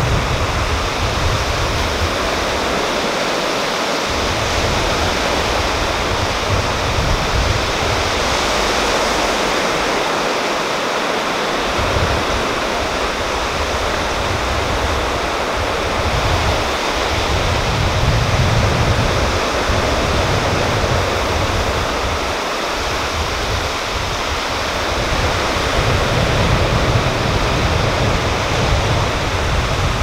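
Small sea waves breaking and washing onto a beach: a steady hiss of surf, with a low rumble that swells and fades every few seconds.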